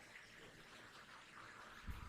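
Near silence: a faint steady hiss, with one soft low thump near the end.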